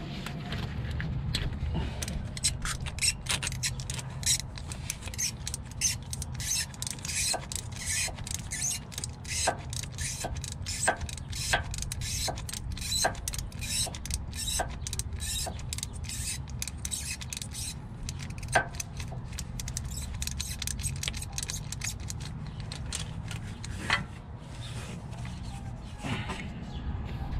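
A ratcheting wrench clicking in quick runs of strokes as a 10 mm bolt is loosened. The clicks thin out to a few single ones in the last third.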